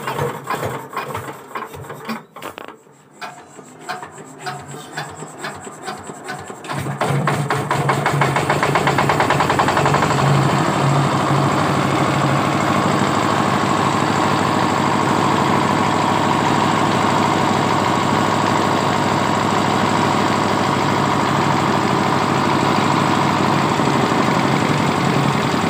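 Stationary single-cylinder diesel engine turning over unevenly after hand-cranking, with irregular knocks, then catching about seven seconds in and running steadily. It is a cold start that gives off black smoke.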